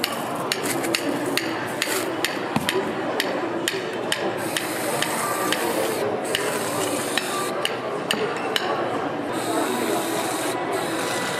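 Whipped-cream dispenser hissing twice as cream is piped onto a crepe, each burst a second or two long. Before it comes a run of light crackling clicks as cornflakes are scattered over another crepe, with steady stall background noise throughout.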